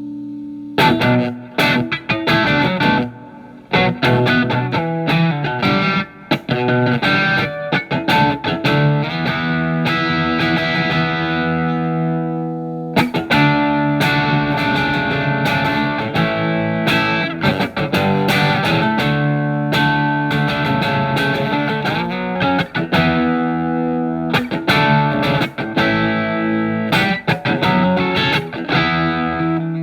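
Electric guitar (a Telecaster with alnico single-coil pickups) through a Marshall MG15FX amplifier's OD1 overdrive channel, with the guitar's volume rolled back so the drive cleans up, playing picked single notes and chords with light grit. The playing pauses briefly a little before halfway.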